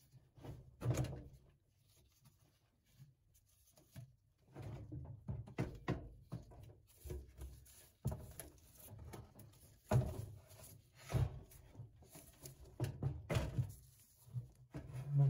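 Concrete counterweight being worked loose and lifted out of the front of a Hotpoint washing machine: irregular knocks, thuds and scrapes of concrete against the machine's tub and cabinet.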